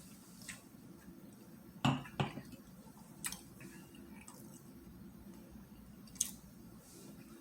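A person eating close to the microphone: quiet chewing with a few short, sharp mouth clicks, the loudest pair about two seconds in.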